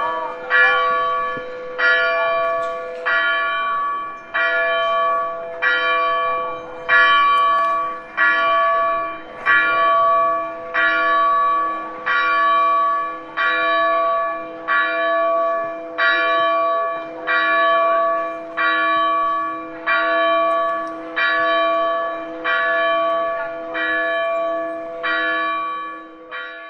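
Church bell tolling steadily, struck a little less than once a second, each stroke ringing on into the next with a lingering hum.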